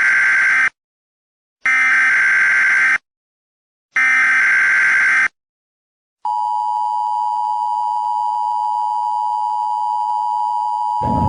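Emergency Alert System test: the end of one burst and two more bursts of SAME header data tones, a rasping digital warble about a second and a half long each with short silent gaps, then the steady two-tone EAS attention signal from about six seconds in. A rush of background noise comes in near the end under the tone.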